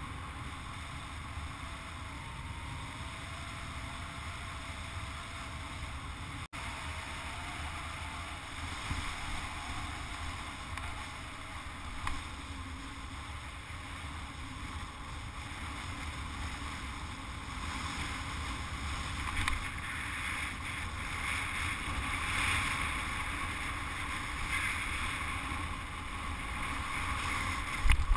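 Wind buffeting the microphone of a camera mounted on a flying hang glider: a steady rushing noise with a low rumble, growing somewhat louder over the second half. A sharp knock comes near the end, as the glider comes down in the dune grass.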